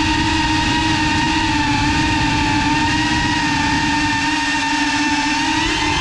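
Brushless motors and propellers of a Cinelog 35 FPV cinewhoop drone, heard through the GoPro mounted on it: a steady buzzing whine with a slight wobble in pitch.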